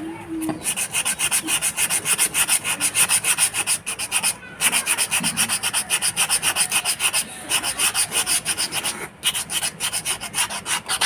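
Sandpaper rubbed by hand across a scooter's drum-brake shoe lining in quick back-and-forth strokes, about six a second, with brief pauses between runs. The lining is being roughened so the brake grips properly.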